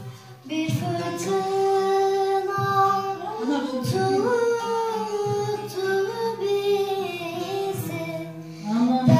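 A young girl singing a slow melody in long held notes, accompanied by a bağlama (long-necked Turkish saz) struck with occasional plucked strokes.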